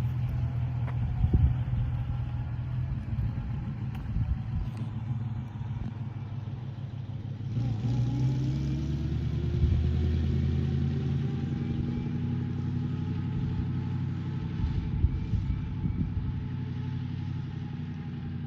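Cord 812 rolling along with a steady low engine and road rumble. From about eight seconds in, a faint thin squeal rises and then falls: the right-rear brake squealing at half pedal even though its shoes, cylinders and springs are new. There are a couple of brief knocks.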